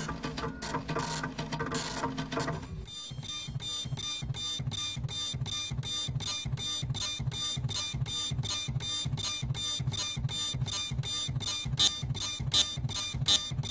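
Dot matrix printers played as music: print heads buzz at set pitches in a dense passage, which about three seconds in gives way to a steady rhythmic pattern of sharp clicks, about four a second, over low pulsing beats and a held high tone.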